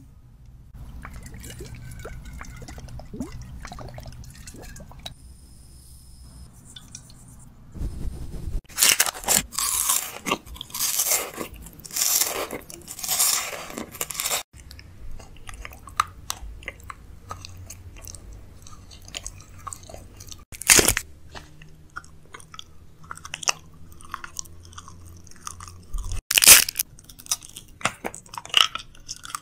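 ASMR-style crunching and chewing mouth sounds close to the microphone. They come in dense loud bursts from about eight seconds in, after a quieter stretch, with single loud crunches later on.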